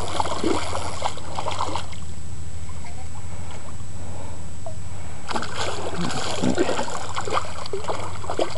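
Hooked redfish (red drum) thrashing at the water's surface, splashing in two bouts: one in the first two seconds and another from about five seconds in. A steady low hum runs underneath.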